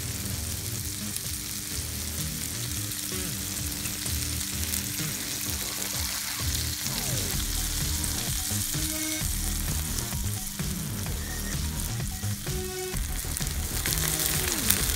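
Bacon-wrapped asparagus sizzling on a Blackstone flat-top griddle: a steady frying hiss.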